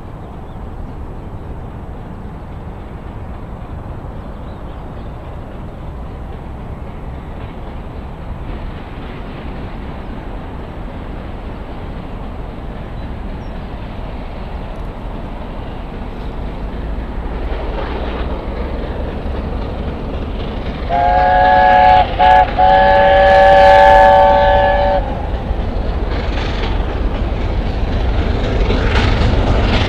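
LNER A4 Pacific steam locomotive 4464 Bittern approaching with a passenger train, its rumble slowly building. About two-thirds through, its chime whistle sounds: a short blast, then a longer one of about three seconds. Near the end the locomotive and coaches run louder as they draw close.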